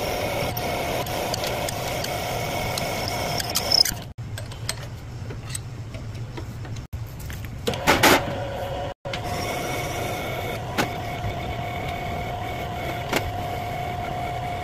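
Cylinder head machine's spindle motor running with a steady whine as a core drill and then a finishing reamer bore out a worn valve guide bore in a Ford 300 cylinder head, opening it up for a new half-inch guide. A short clatter about eight seconds in.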